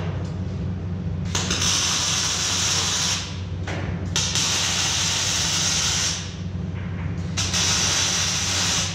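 Arc welding on the steel hull plates of a narrowboat shell: three runs of hissing arc, each about two seconds long with short pauses between, over a steady low hum.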